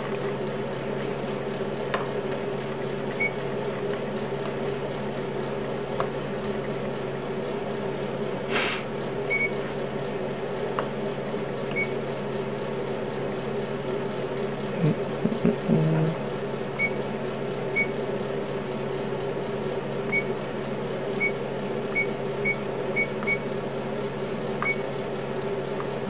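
Short electronic key-press beeps from a car stereo head unit's touchscreen as it is tapped with a stylus, about a dozen scattered through, several in quick succession in the second half. Under them runs a steady electrical hum.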